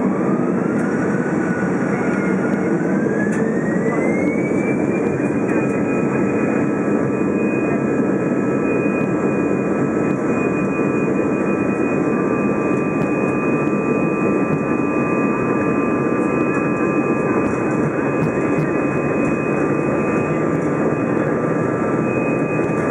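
Airbus A320 jet engines heard from inside the cabin, spooling up to takeoff thrust for the departure run. A whine rises in pitch over the first five seconds, then holds at a steady high pitch over a loud, even rumble.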